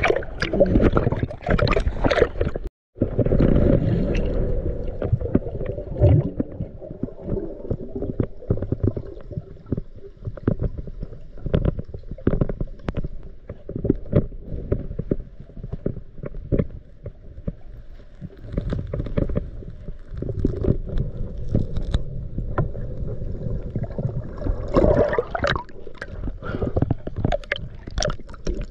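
Muffled underwater water noise: a low, steady rush with frequent small clicks and knocks, and a very brief dropout a little under three seconds in.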